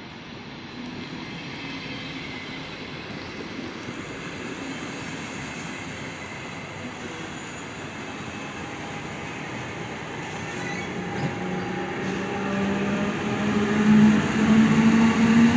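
SBB double-deck S-Bahn push-pull train rolling slowly past, its wheels running on the rails. A steady electric whine from the Re 450 locomotive's drive grows louder over the last few seconds as the locomotive approaches.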